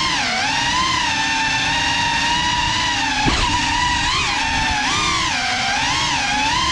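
6S GEPRC Cinelog 35 cinewhoop's brushless motors and ducted propellers whining in flight, the pitch rising and falling continuously with throttle, with one sharp momentary drop about three seconds in.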